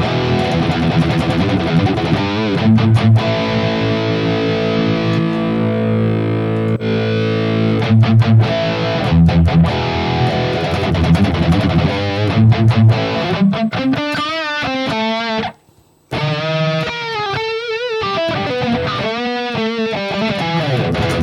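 Distorted electric guitar played through a Tube Screamer-style overdrive: chugging and ringing chords, then single-note lead phrases with wide bends and vibrato, with a brief stop about two-thirds of the way through.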